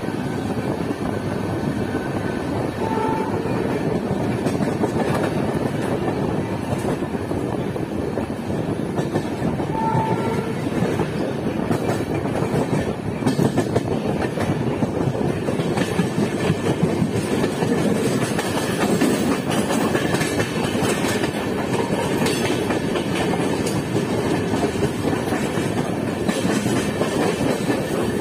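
Coaches of an express passenger train running on rails, heard from an open doorway: steady wheel-on-rail noise with clickety-clack over rail joints. Two brief high toots come in the first ten seconds. In the second half the clacks come thicker and the noise grows louder as a local electric train passes close alongside on the next track.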